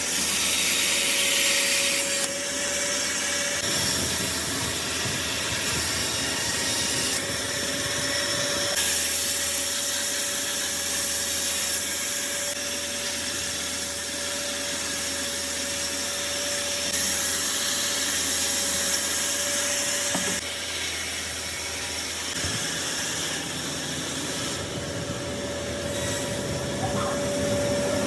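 Woodworking machinery cutting wood: a steady motor whine under a hissing cutting noise, the sound changing abruptly every few seconds.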